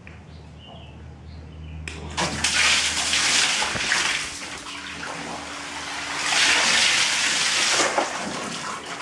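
Interdab GV180 submersible pump jetting water out of its one-inch hose. A low hum runs until about two seconds in, then a loud gush of water splashes out, easing off and surging again twice as the hose whips about.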